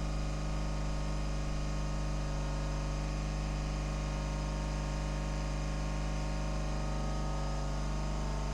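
Steady electrical mains hum, a low tone with a stack of evenly spaced overtones, over a constant hiss from running workbench electronics.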